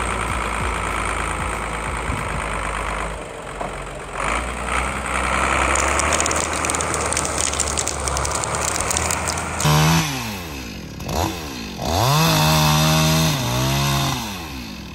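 Petrol chainsaw running under load for most of the time. About ten seconds in, its engine note rises and falls in several sweeps as the throttle is opened and eased off.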